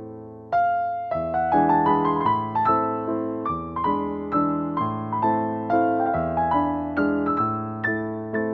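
Background music: a gentle piano tune of evenly paced notes, with a brief pause about half a second in.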